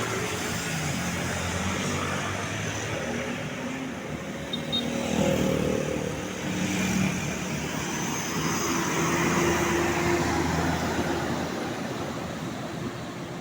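Road traffic: motor vehicles driving past on the road, engines running, growing louder about five seconds in and again around nine to ten seconds.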